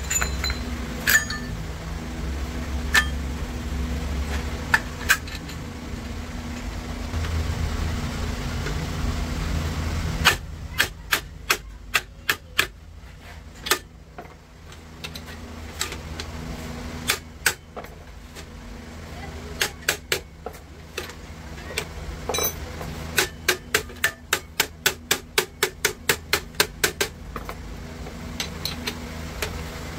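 Hammer blows on metal parts: a few single strikes, then quick even runs of about two to three blows a second.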